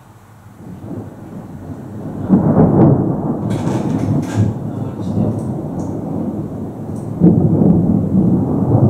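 Rolling thunder: a low rumble swells up from quiet, surges sharply about two seconds in, rumbles on, then surges again about seven seconds in.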